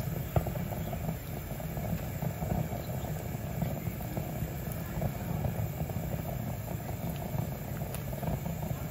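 Gas stove burner under a large pot of pork broth coming to the boil: a steady low rumble of flame and simmering water, with a light knock about half a second in.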